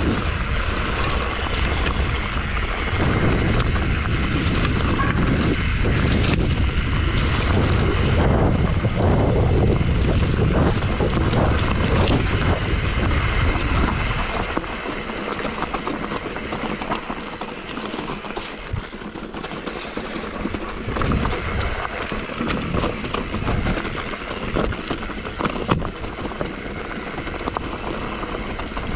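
Wind buffeting a moving on-board camera microphone, mixed with the rumble and rattle of a bike running over rough ground. The heavy low rumble eases about halfway through, leaving scattered sharp knocks and rattles.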